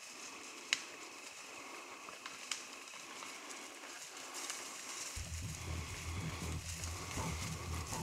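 Quiet outdoor ambience with two sharp clicks, then a steady low rumble from about five seconds in.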